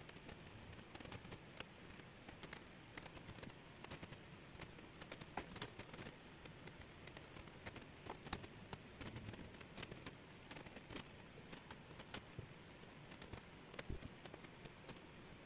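Faint, irregular small clicks and rattles of thin laser-cut plywood jigsaw pieces being picked up, moved and set down on a table by hand, over a soft steady hiss. One click about eight seconds in stands out as the sharpest.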